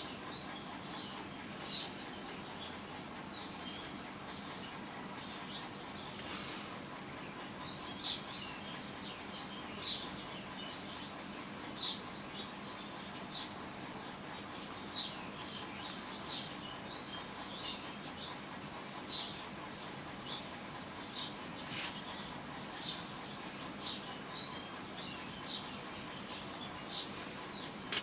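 A bird chirping in short calls every second or two, over a faint steady background hiss.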